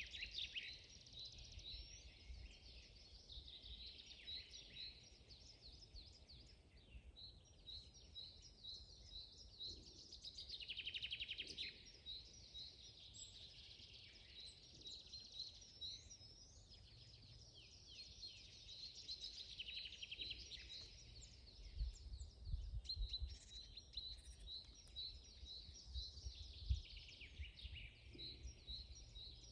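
Several forest songbirds singing at once: repeated short chirps, with bursts of rapid trills shortly after the start and again around the middle. A low rumble comes in under the birdsong in the second half.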